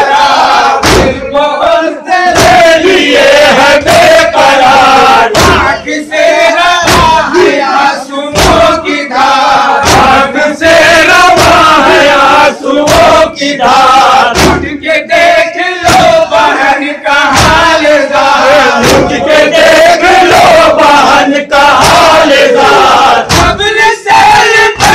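A group of men chanting a nauha, a Shia mourning lament, in unison through a PA, with regular sharp slaps of matam (hands striking the chest) keeping a steady beat under the voices.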